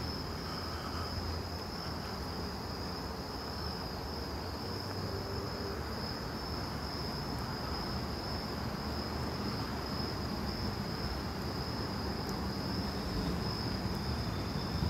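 Steady chorus of night insects, crickets, as one continuous high trill, with a second, slightly lower trill joining near the end. Underneath is a low, even background rumble.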